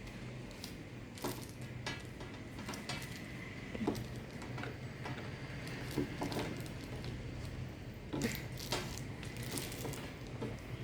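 Scattered light clicks, taps and small knocks from handling a laptop charger and its cable, over a low steady hum.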